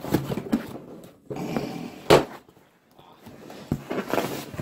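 Cardboard shipping box being handled and pulled at while it resists opening: irregular scraping and rustling, with one sharp knock about two seconds in.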